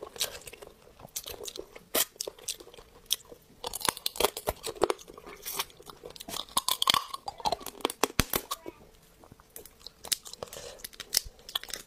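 Close-miked crunching and cracking of the spiny shell of a cooked hermit crab's leg between the teeth, with chewing; many sharp cracks, thickest in the middle of the stretch.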